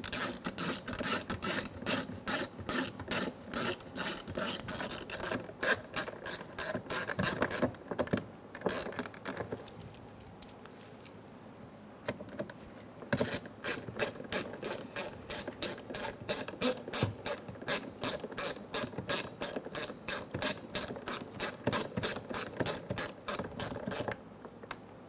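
Hand ratchet clicking quickly and evenly as it drives screws home, in two long runs separated by a pause of a few seconds about ten seconds in.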